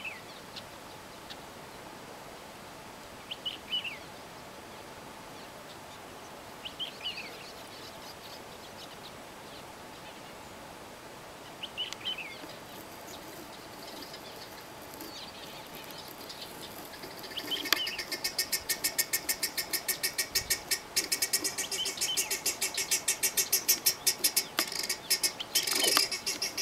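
A bird gives short falling chirps every few seconds. About two-thirds of the way in, a loud, fast, pulsing chirring starts and keeps going, about six pulses a second, drowning out the bird.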